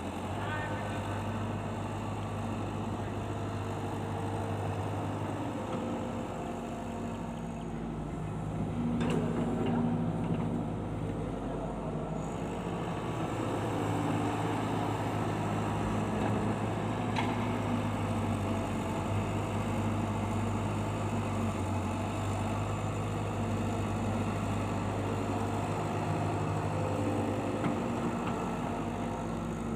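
Heavy machinery engines running steadily at a low, even pitch, shifting slightly now and then, as of a backhoe loader and tractors at work.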